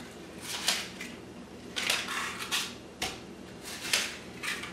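Paper cupcake liners rustling and crinkling as they are handled and set into a cupcake baking pan: a series of about five short rustles and light clicks.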